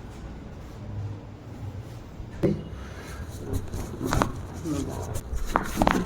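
A low steady hum, then from about two and a half seconds in a few sudden sharp clicks and knocks, the loudest near the end.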